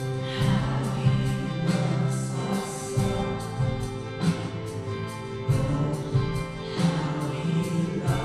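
Christian worship music: voices singing over instruments with a steady beat.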